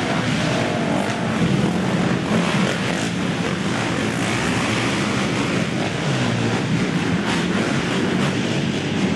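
Several racing quad (ATV) engines running and revving together as one dense, continuous engine noise whose pitch keeps rising and falling.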